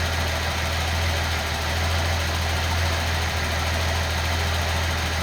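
Nissan L28ET turbocharged straight-six idling steadily, with its misfire cured by a new manifold gasket that ended a lean idle.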